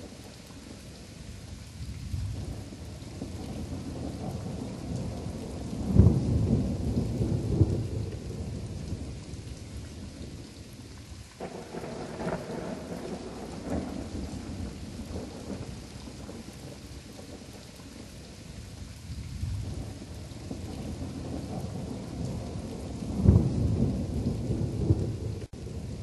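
Thunderstorm: steady rain with rolling thunder. The loudest rumbles come about six seconds in and again near the end, with a softer one around twelve seconds. The storm cuts off abruptly just before the end.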